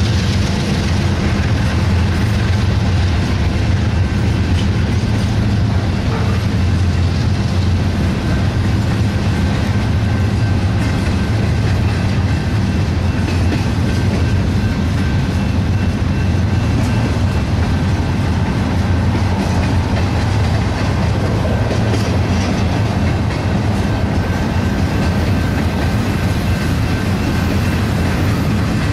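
Double-stack container well cars of a BNSF freight train rolling past: a steady, loud rumble of steel wheels on the rails.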